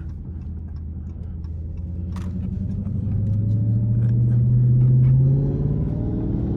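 Dodge V8 engine pulling the car along at low speed, its low note rising gradually for a few seconds, easing off about five seconds in, then holding steady.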